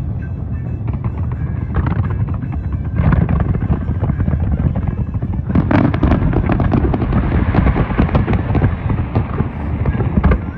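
Fireworks display: a continuous barrage of booming shell bursts and sharp crackling, growing denser about halfway through.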